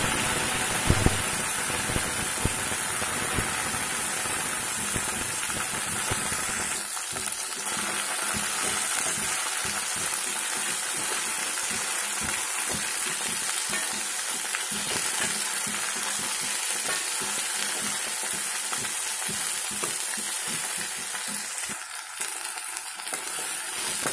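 Fresh coriander leaves sizzling steadily in hot oil in a stainless steel kadai. After several seconds a metal spatula starts scraping and tossing the leaves against the pan in quick, repeated strokes.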